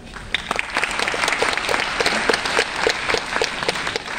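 Audience applauding: a dense patter of many hand claps that starts just after a pause and keeps going.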